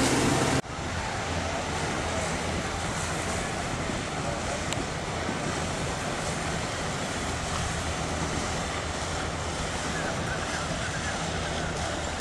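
Riverside ambience: a steady hiss of wind on the microphone and moving water, under the low hum of a passing motorboat's engine. A louder sound cuts off abruptly about half a second in.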